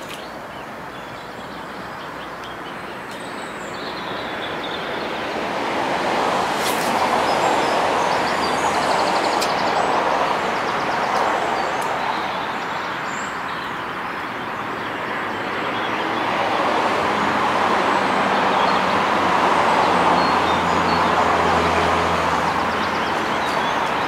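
Distant passing vehicle noise: a rushing hiss that swells, eases off and swells again, with a low engine hum under the second swell.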